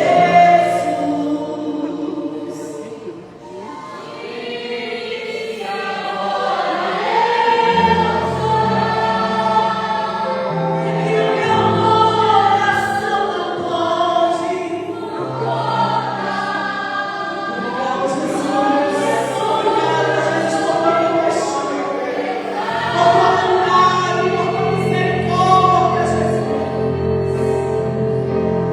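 Choir singing Christian worship music, with sustained low bass notes changing every few seconds underneath the voices.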